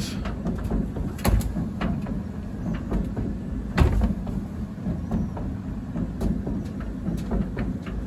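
Candy heat pump tumble dryer running with a steady low rumble, and a few knocks, the loudest about four seconds in, as the cabinet is tilted back by hand.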